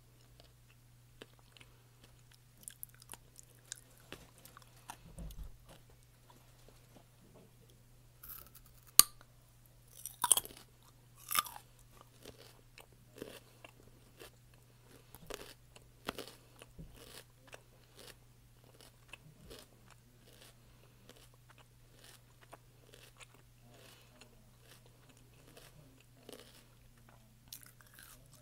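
A person biting and chewing crunchy raw food close to the microphone: a run of crisp crunches, with a few loud sharp bites about a third of the way in. A steady low hum runs underneath.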